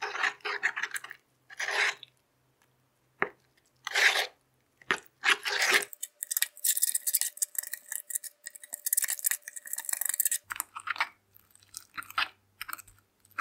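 Squelching and crackling of a clumpy mix of peel-off face mask and borax activator, stirred and mashed with a plastic spoon in a plastic bowl. It comes in short strokes at first, then a few seconds of steady crackling near the middle.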